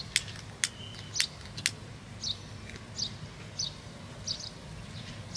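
A cigarette lighter clicking four times in quick succession in the first two seconds as it is struck to light a cigarette. A bird repeats a short high chirp about every two-thirds of a second.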